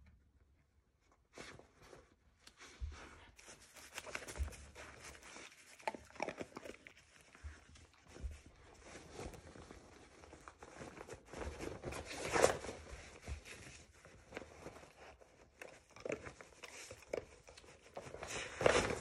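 A dog rooting through a plush fabric snuffle mat: irregular rustling and crinkling of the fabric with a few short knocks and crunches as it finds hidden treats. The loudest knock comes about twelve seconds in.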